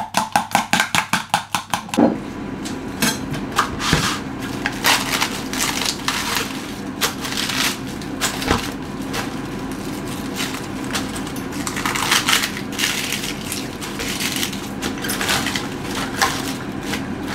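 A spoon clinking rapidly and evenly against a bowl as a sauce is whisked, stopping about two seconds in. After that come irregular crisp crunching and crackling as iceberg lettuce leaves are torn apart by hand and dropped into a bowl.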